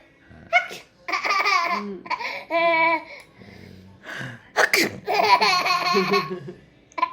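Two sneezes, one near the start and a sharper one about four and a half seconds in, each followed by a fit of high-pitched laughter in quick pulses.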